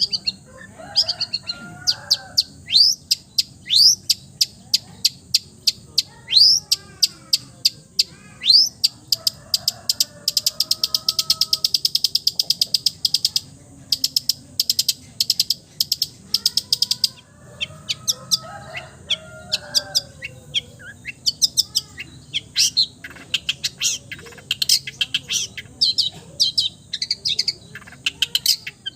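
Long-tailed shrike (cendet) singing a varied song full of mimicked notes: many sharp, falling whistles, lower warbling phrases, and a fast, dense run of rattled notes about ten seconds in that lasts some three seconds.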